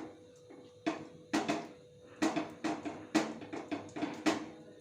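About eight short, sharp sounds, each fading quickly, as pieces of marinated chicken are picked from the bowl and dropped one at a time into hot oil in a wok to fry.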